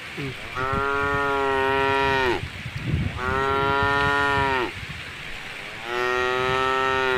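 A cow mooing three times, each a long, level call of about a second and a half that drops in pitch at its end.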